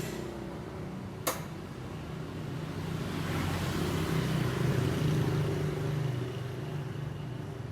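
A steady motor hum that swells in the middle and then eases off, with one sharp click about a second in.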